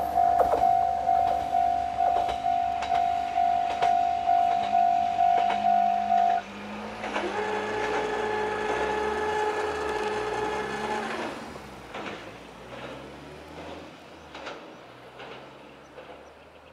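Level-crossing warning bell ringing its repeated electronic ding about twice a second, then cutting off suddenly about six seconds in. A diesel railcar's engine note follows: it rises, holds for about four seconds, falls away and fades.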